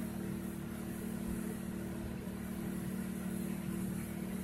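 A steady low hum with a constant hiss underneath, unchanging throughout.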